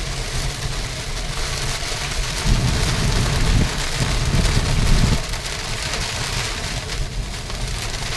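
Steady rain falling, with a low rumble that swells about a third of the way in and eases around the middle.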